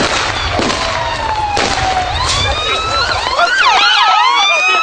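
A siren wails, its pitch sliding slowly down and back up, then breaking into a fast yelp about three and a half seconds in before rising again. Several sharp cracks and a low rumble sound under it in the first half.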